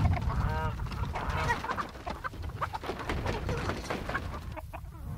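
Chickens clucking and squawking close by, one hen fluttering and flapping her wings, over a low rumble in the first couple of seconds.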